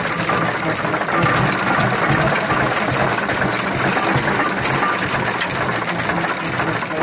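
1926 Rumely M winch tractor running steadily, its engine turning the flywheel, drive belt and chain, with a fast, even mechanical clatter throughout.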